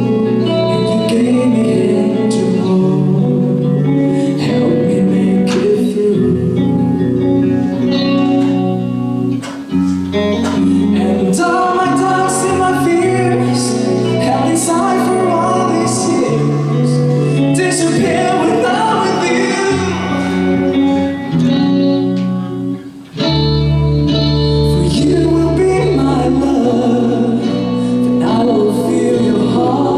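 Live hard rock band playing loudly, with electric guitar, drums and a singer. The music drops out for a moment about 23 seconds in, then comes back in with heavy low notes.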